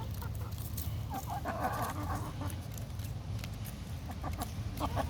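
Rhode Island Red and Araucana hens clucking softly while they feed on persimmon, with scattered short clicks.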